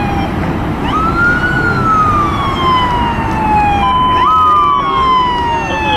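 Police car siren wailing twice: each wail jumps up in pitch and then falls slowly over about three seconds, over a steady low rumble.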